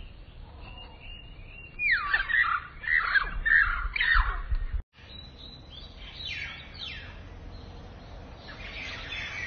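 Small birds chirping: series of quick, falling chirps, a brief break in the sound about halfway, then more falling chirps and a busier chorus of calls near the end.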